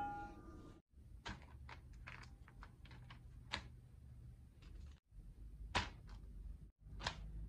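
Handling sounds of thin crepes being laid on and straightened on parchment paper: scattered light taps and clicks at irregular intervals over a faint low hum.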